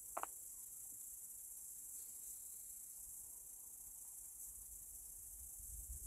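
Steady high-pitched chirring of insects, crickets, throughout, with one short click just after the start.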